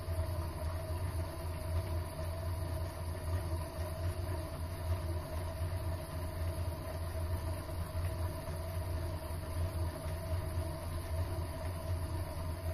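Mini lathe running steadily, its motor and drive giving a constant low hum with a steady whine over it.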